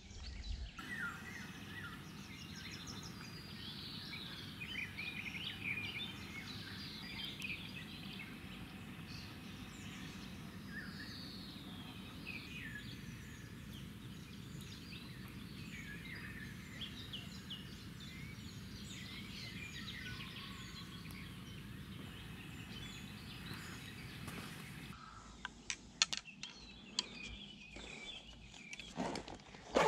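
Several songbirds singing and chirping in a morning chorus over a faint, steady low background noise. Near the end a few sharp clicks and knocks come from the angler handling his spinning rod and reel.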